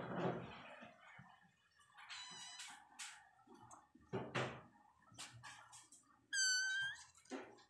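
Kittens mewing as they tussle in a wire cage: a faint mew about two seconds in and a loud, high-pitched mew just after six seconds, the loudest sound. Short rustles and knocks of their scuffling come between the calls.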